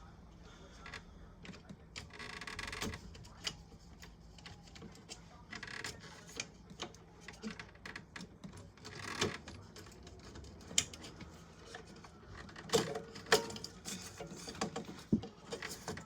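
Irregular clicks, taps and light clatter of small parts and hand tools being handled during electrical wiring work.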